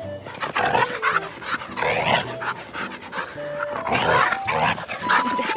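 Dogs vocalizing and panting as they play together, with short, bending whine-like calls throughout, over background music with held notes.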